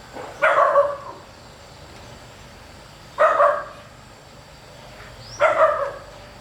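An animal calling three times, each call short, about two and a half seconds apart.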